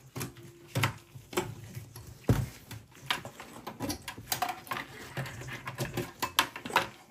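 Irregular clicks, rustles and light knocks of power-supply cables and plastic connectors being unplugged and pulled through a desktop PC's sheet-metal case by gloved hands. There is a duller thump about two seconds in.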